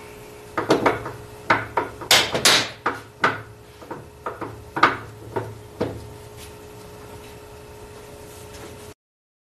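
Ford 9-inch ring and pinion gears clunking as the pinion is turned back and forth: a quick series of sharp knocks over about five seconds, which then stop. The clunking comes from excessive tooth clearance (backlash) between ring gear and pinion, not yet adjusted out.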